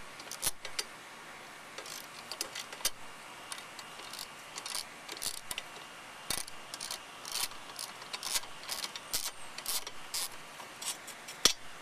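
Socket ratchet wrench clicking in short irregular runs as it works a bolt on a lawnmower engine's muffler cover, with small metallic clinks from the tool and bolt.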